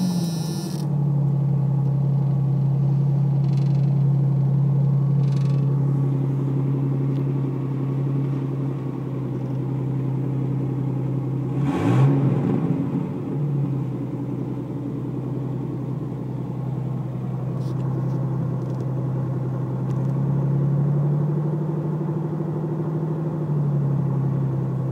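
1989 Jeep Cherokee XJ engine idling steadily with an exhaust leak at the down pipe. About halfway through, the throttle is blipped once, briefly, and the pitch rises and falls.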